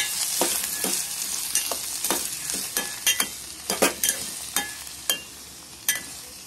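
Chopped peas, capsicum, tomato and onion sizzling in hot ghee in a steel pot while a steel spatula stirs them, scraping and clicking against the pot about once or twice a second. The sizzle eases off toward the end.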